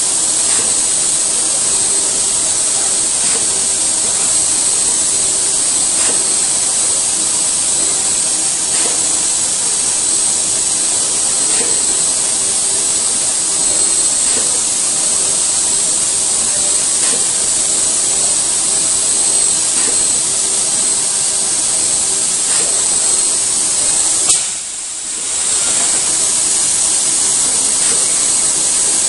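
Steady machine hiss of an automated car-body assembly line, with a faint steady hum beneath it and a few light ticks. The level dips briefly near the end, then returns.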